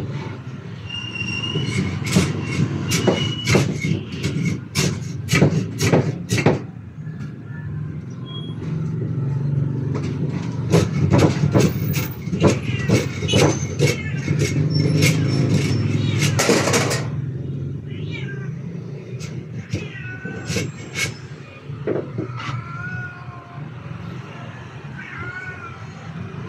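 Hammer blows nailing the board panels of a counter cabinet: a quick run of sharp knocks for a few seconds, a pause, then a second, longer run of knocks.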